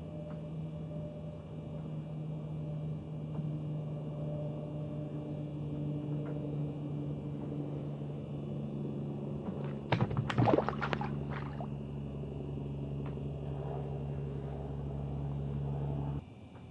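A steady low motor hum that cuts off suddenly near the end. About ten seconds in there is a short burst of knocks and rustling close to the microphone.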